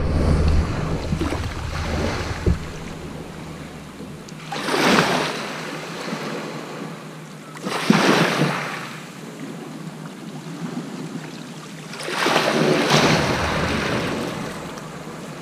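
Small waves breaking and washing up a shingle beach, three surges a few seconds apart. Wind buffets the microphone in the first couple of seconds.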